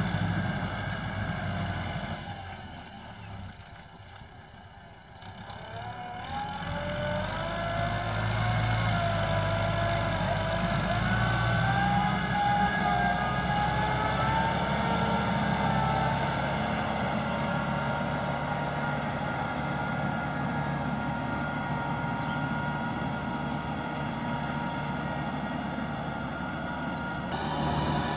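Farm tractor's diesel engine labouring in deep mud: it drops low for a few seconds, then revs up with a rising, wavering pitch and runs on steadily under load.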